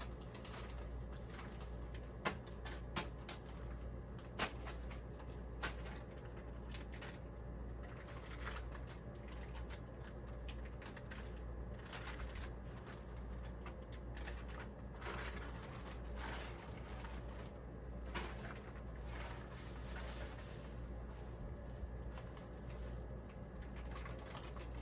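Scattered sharp clicks and taps of small hardware being handled and fitted on a workbench, over a steady low hum.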